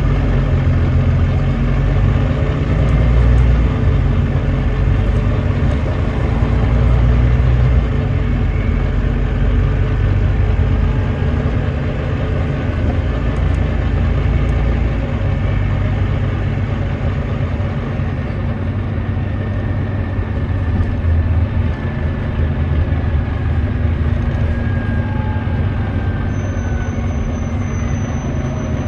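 Volvo B9TL double-decker bus's Volvo D9B 9.3-litre diesel engine running under way, heard on board, an engine the recording labels as misfiring. The deep engine rumble eases off about a third of the way through, with faint whistling tones near the end.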